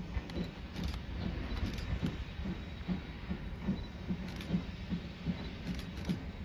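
Western Pacific 165 steam locomotive moving slowly at a distance, with a regular beat about two to three times a second over a low rumble.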